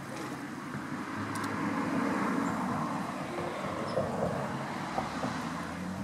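A motor vehicle passing on a road, its noise swelling over the first two seconds and fading toward the end.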